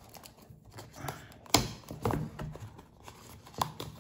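A cardboard webcam box being pried open by hand: light rustling and scraping of the tucked lid flap, with a sharp snap about a second and a half in and a few smaller clicks near the end as the tight-fitting tab is worked loose.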